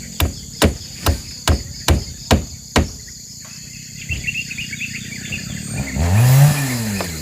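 A quick run of about eight sharp strikes, roughly two and a half a second, that stops about three seconds in; about six seconds in a two-stroke chainsaw revs up and back down.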